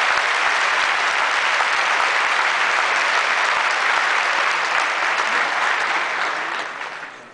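Large audience applauding steadily, the clapping fading away near the end.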